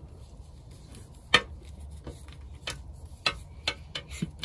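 Scattered light clicks and taps as a white Ethernet patch cable is handled and uncoiled, its plastic plug and coils knocking; one sharper click a little over a second in, then a few more irregular ones.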